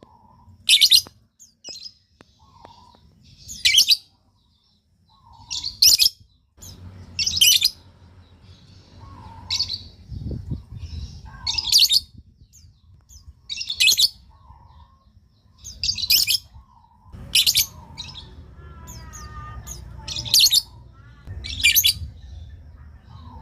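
Lovebird giving short, shrill chirps, one every second or two, the calls used to lure another lovebird into answering. A faint low rumble sits underneath.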